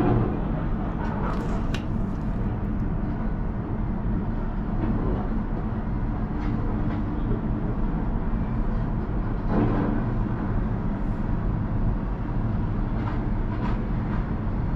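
Steady low rumble and hum inside a moving cable-car gondola as the cabin runs along its haul rope, with a few faint knocks.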